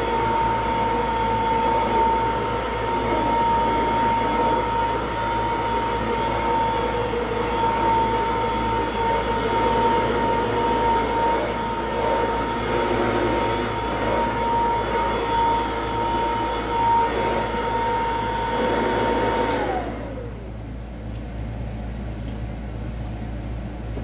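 Vintage Royal 153 upright vacuum cleaner's small 3-amp motor running with a steady high whine as it is pushed over carpet, its motor and brush-roll bushings freshly lubricated. About 19 seconds in it is switched off with a click and the whine falls in pitch as the motor spins down.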